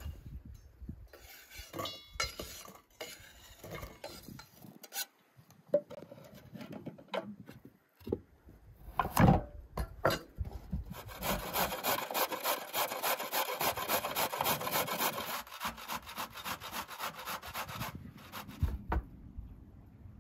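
Scattered knocks and clicks of utensils on a wooden table, with one loud thump about nine seconds in. From about eleven seconds a carrot is grated on a stainless steel box grater: a fast, even run of scraping strokes lasting about seven seconds.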